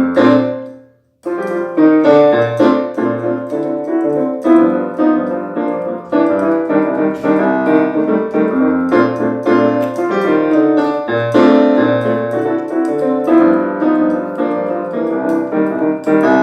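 Electric-piano keyboard music, chords over a low bass line, that breaks off briefly about a second in and then plays on.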